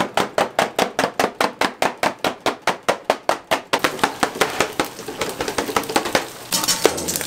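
Kitchen knife chopping fast and evenly on a cutting board, about five strokes a second, stopping a little under four seconds in. After that comes a steady hiss with light clatter.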